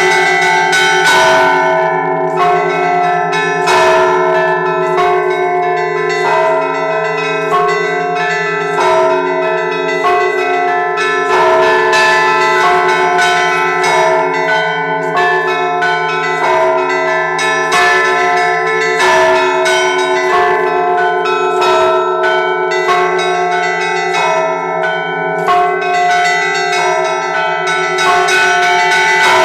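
Russian Orthodox church bells rung by hand as a razgonny zvon, the festive peal that closes the Sunday service. Several bells of different pitches sound together in a continuous peal: small bells struck in a quick repeating rhythm over the steady ring of larger bells.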